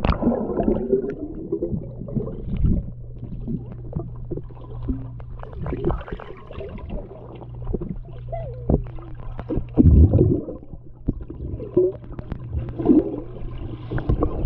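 Muffled sound heard through water as a person dunks under and holds his breath: a splash as he goes under, then gurgling, bubbles and scattered clicks and knocks over a steady low hum, with a louder bubbling surge about ten seconds in.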